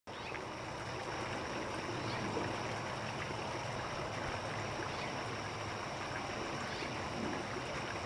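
Steady, even rushing hiss of background noise with no distinct event in it.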